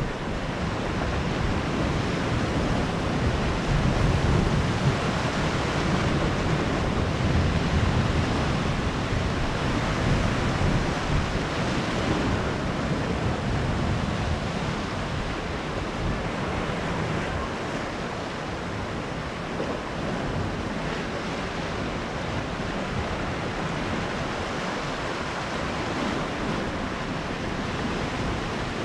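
Mediterranean sea waves washing onto the shore of a small cove in a continuous surf noise, swelling and easing, with wind rumbling on the microphone.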